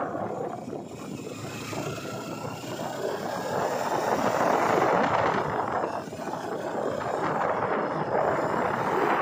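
Sport motorcycle engine running while riding at low speed, with wind rushing over a helmet-mounted microphone; the noise swells and eases as the throttle and speed change, with a faint rising engine note early on.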